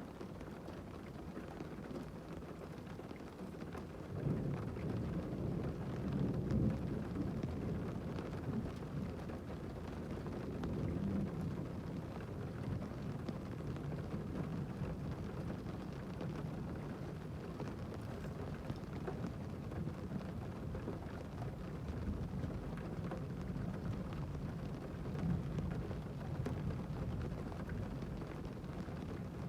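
Rain drumming steadily on a car's roof and windows, heard from inside the cabin as a dull, low rumble; it gets heavier about four seconds in.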